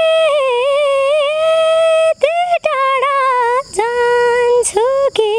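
A woman singing a Nepali song unaccompanied, holding long notes with a slight waver and pausing briefly for breath between phrases.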